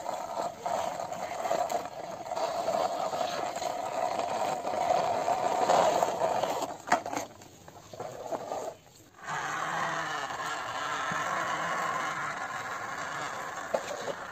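Plastic toy car pushed by hand along concrete, its wheels rolling and scraping with a rattle. After a brief break about nine seconds in, a plastic toy excavator's tracks scrape steadily along the concrete.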